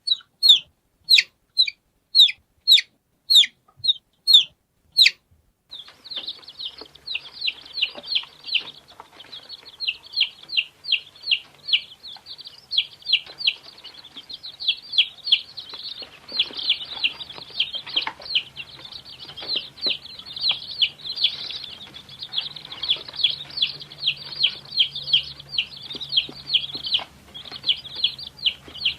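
Domestic chicks peeping. For the first five seconds or so a single chick gives clear, high, downward-sliding peeps, about two a second. Then many chicks peep at once in a dense, overlapping chorus.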